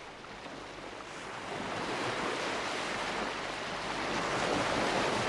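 A steady rush of water that grows gradually louder.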